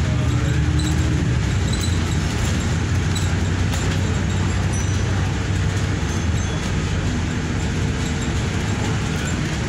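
Double-decker bus in motion, heard from the upper deck: a steady low engine drone under road noise, with occasional faint clicks.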